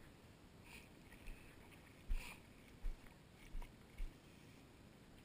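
Faint splashes and soft thumps in ankle-deep water, five or so at irregular intervals.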